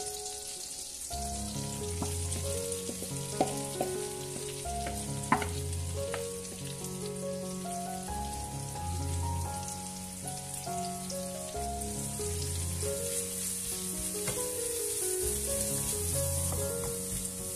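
Olive oil and butter sizzling in a non-stick frying pan, then sliced onions frying and being stirred with a wooden spatula; a few sharp clicks come a few seconds in. Soft background music with a slow bass beat plays throughout.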